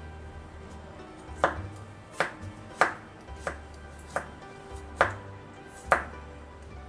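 Chef's knife slicing a garlic clove on a wooden cutting board: about seven sharp knife strikes on the board, starting about a second and a half in, spaced a little under a second apart.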